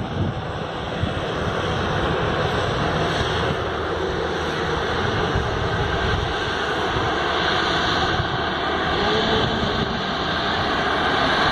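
Twin-engine turboprop plane taxiing after landing, its engines and propellers running steadily and growing a little louder near the end.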